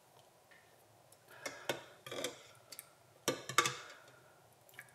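Metal spoon clicking and scraping against a plastic cup as it scoops through liquid, in two bursts, about a second in and again past three seconds, the second louder.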